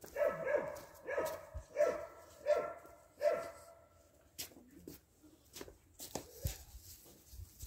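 A dog barking repeatedly, about five barks in the first three and a half seconds, then a few faint clicks and knocks.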